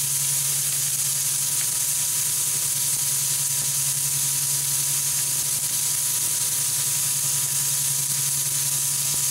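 Raw hamburger patties sizzling steadily on the hot plate of an electric smokeless grill, with a steady low hum beneath.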